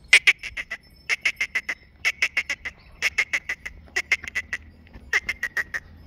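A bird calling in six quick bursts of five to seven short notes each, about one burst a second.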